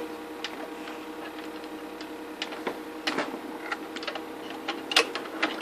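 Scattered small clicks of metal tweezers probing inside a DVD drive's slot to pull out a stuck match, over a steady hum.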